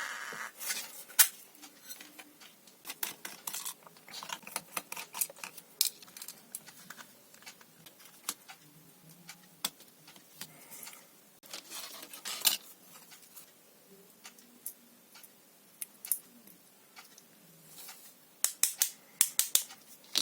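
Short, irregular clicks, taps and snips from hand work on a loudspeaker, with a quick run of sharper clicks near the end.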